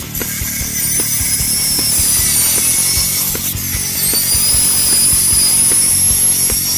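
Metal-cutting chop saw cutting through steel box-section tube, with a high blade whine that dips in pitch as the blade takes the load and then recovers.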